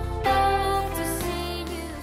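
A girl's solo voice singing a pop song over an instrumental backing track, the phrase tapering off near the end.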